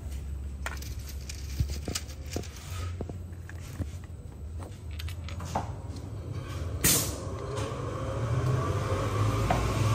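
Light clicks and knocks of laminated board panels and fittings being handled on a workbench, with a sharper knock about seven seconds in, over a steady low hum. In the last few seconds a vehicle engine rises in pitch.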